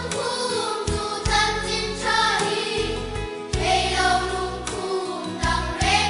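A children's choir singing a Mizo-language Christian song together over an instrumental accompaniment with a steady bass line.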